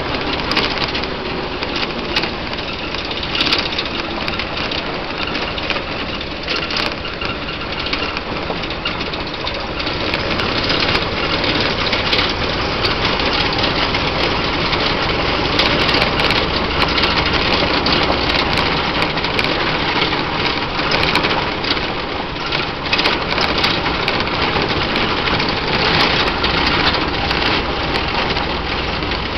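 A 1927 Ford Model T's four-cylinder flathead engine running steadily as the car drives along a gravel road, with gravel crunching under the tyres and many small clicks and rattles throughout.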